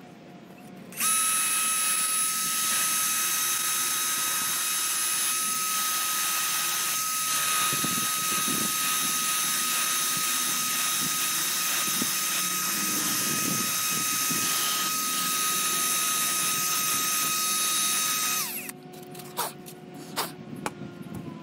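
Small handheld power tool running at a steady high-pitched whine for about seventeen seconds while cutting a recess into a model's display base, then switching off; a few light knocks follow near the end.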